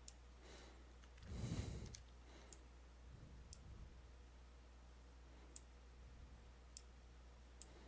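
Near silence over a low steady hum, broken by about six faint, sharp computer-mouse clicks spread through it. A short soft rush of noise about a second and a half in is the loudest sound.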